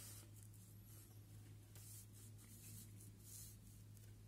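Near silence: quiet room tone with a faint steady low hum.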